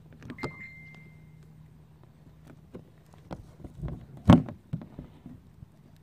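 Hands handling and pressing down a plastic sheet laid on a box hockey frame: scattered taps and rustles, with one louder thump a little over four seconds in.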